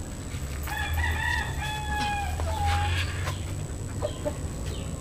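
A gamecock crowing once: a single held crow of about two seconds that drops slightly in pitch at the end.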